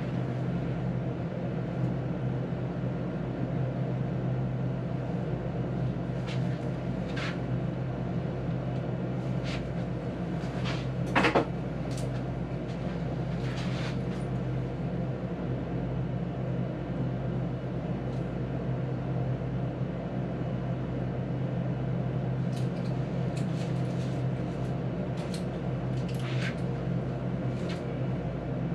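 Steady low hum of treatment-room background noise with scattered soft clicks and knocks, and one louder, brief knock about eleven seconds in.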